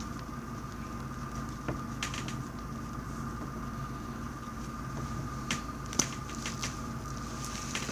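Purple floam (slime packed with styrofoam beads) being handled, giving faint scattered clicks and crackles over a steady background hum.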